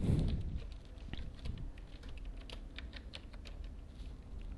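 Typing on a computer keyboard: a string of irregular key clicks, several a second, as a line of Java code is entered. A soft low thump comes right at the start.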